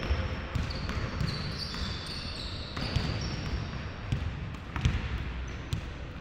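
Basketball play on a hardwood gym floor: a ball bouncing in irregular thumps, with short high-pitched sneaker squeaks scattered throughout.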